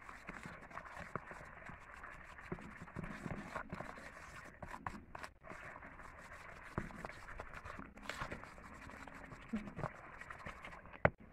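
Wooden spoon stirring eggs into a thick margarine and sugar mixture in a plastic bowl: irregular scraping against the bowl with soft knocks, and one sharp knock near the end.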